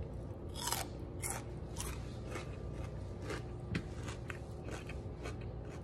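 Chewing a mouthful of raw radish: crisp crunches about twice a second. They are loudest in the first two seconds and grow softer as the bite is chewed down.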